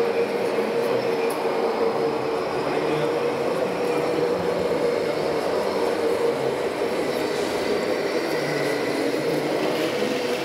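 A steady mechanical hum with one constant pitch, holding level throughout, under a low murmur of voices.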